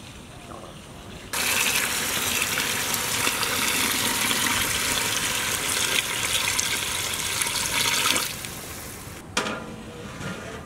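Water poured from a steel vessel into a large metal cooking pot of rice and vegetables: a steady splashing gush that starts about a second in and stops after about seven seconds. A single clank follows near the end.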